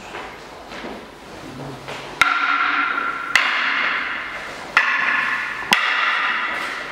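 Wooden fighting sticks striking each other four times. Each sharp clack rings on for about a second. Softer shuffling and movement come before the first strike.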